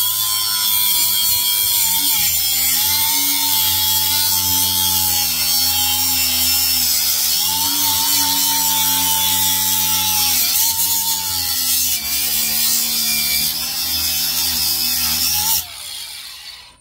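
Angle grinder with a cutoff disc running and cutting into an electric motor's copper windings. Its whine dips in pitch several times as the disc bites under load, then it is switched off near the end and spins down. The disc is clogging with copper, which makes it cut less well.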